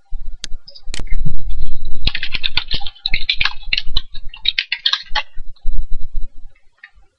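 Computer keyboard being typed on: a couple of single clicks, then a fast run of key clicks lasting about three seconds, with a low rumble underneath.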